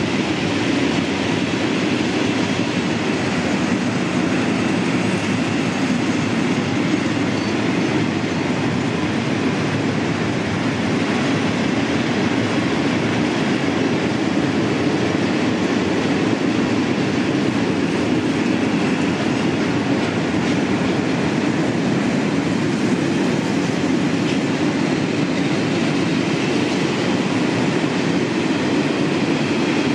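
Freight train of tank wagons rolling past at steady speed: a continuous, even noise of wagon wheels on the rails.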